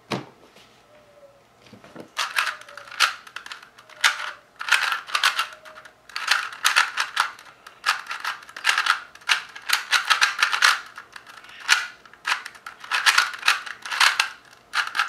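Plastic 3x3 speedcube being turned fast during a timed solve: rapid clicking and clacking of the layers in quick runs with short pauses, starting about two seconds in. The cube catches slightly on some turns, which the solver calls a little bit locky.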